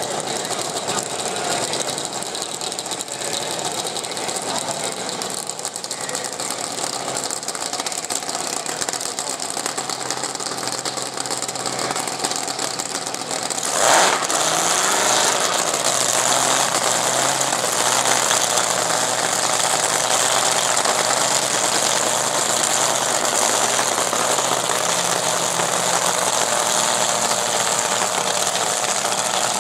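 A dragster's supercharged V8 being started by its crew about halfway through: a sudden loud burst as it fires, then the engine idling steadily and loudly. Before it fires there is a steady background engine rumble.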